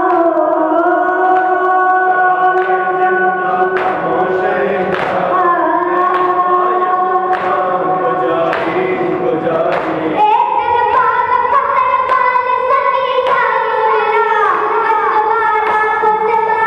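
A boy's voice chanting a noha into a microphone, unaccompanied, with men's voices joining in chorus, over a steady rhythm of sharp slaps about once a second, typical of matam chest-beating. About ten seconds in, the melody steps up to a higher line.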